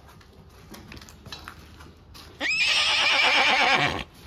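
A horse whinnies once, loudly, about two and a half seconds in: a long shrill call of about a second and a half that rises at the start and quavers. Before it, faint clicks of farrier's pincers on the horseshoe.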